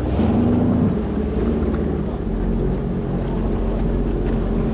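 Jet ski engine running steadily at low speed, with wind on the microphone.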